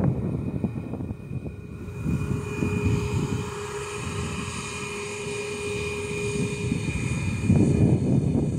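Aircraft engines running: a low rumble with a steady whine over it, the rumble swelling louder near the end.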